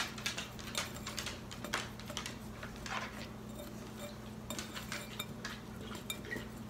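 Small wire whisk stirring dry baking soda and cornstarch in a glass bowl, making many light, irregular clicks and scrapes against the glass.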